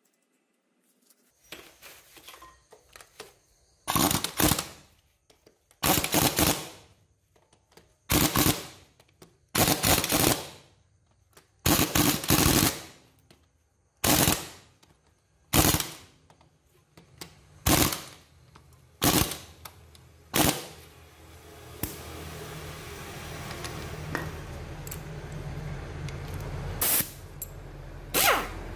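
Impact driver rattling in short bursts, about one every two seconds, as it runs bolts into a motorbike engine's cylinder head. A steady background noise slowly builds in the last third.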